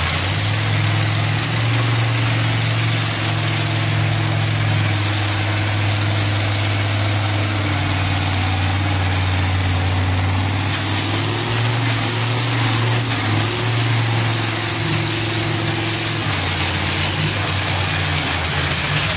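John Deere tractor's diesel engine running hard under heavy pulling load, its steady deep note wavering up and down in pitch a few times, most between about eleven and fourteen seconds in.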